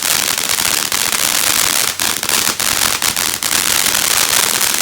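"Dramatic Fantasy" ground fountain firework spraying with a steady hiss and dense crackling pops. A few sharper cracks stand out among them.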